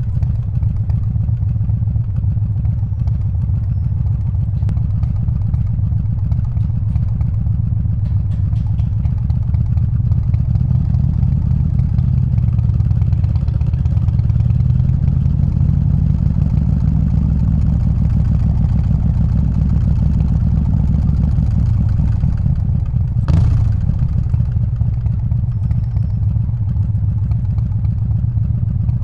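Harley-Davidson Softail's 124 cubic inch S&S Evo V-twin running steadily at low road speed, swelling slightly in the middle. Late on there is one sharp crack.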